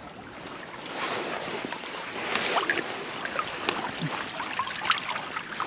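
Stream water splashing and sloshing around a landing net dipped into the shallow current, with many small splashes and gurgles. It grows louder about a second in.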